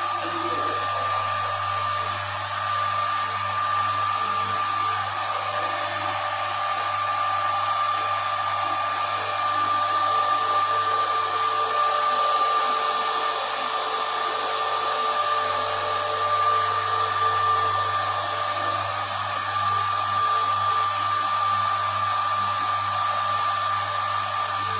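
Reverse-osmosis water purification plant running: a steady, unbroken rushing noise from its pump motor, with a constant high whine and a low hum.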